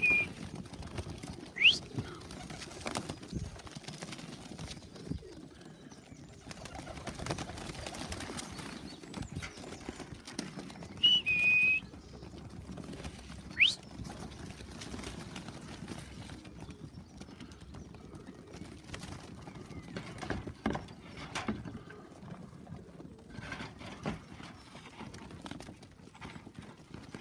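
Young racing pigeons cooing around the loft, with scattered light taps and a few short, high whistle-like notes, two of them quick rising sweeps.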